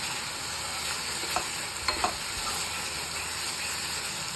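Grated carrot halwa sizzling in ghee in a stainless steel kadai as it is stirred with a wooden spatula. The spatula gives a few short scrapes against the pan around the middle.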